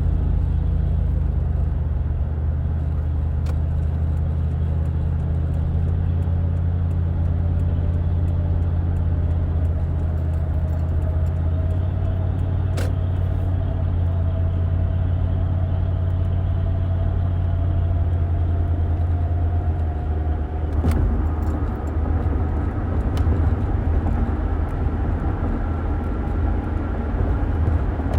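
A car being driven, with a steady low rumble from the engine and road. A faint whine rises slowly in pitch through the second half, and there is a sharp tap about a third of the way in and another about three-quarters in.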